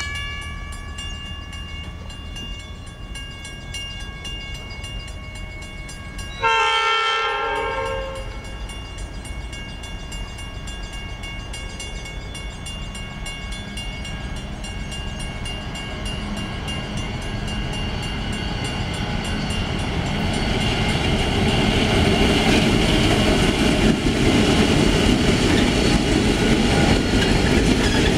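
Pacific National 81 class diesel locomotives' horn: a multi-note horn fades out at the start, then sounds again in one louder blast of about a second and a half about seven seconds in. The rumble of the approaching freight train then swells from about halfway and stays loud as the loaded hopper wagons roll past.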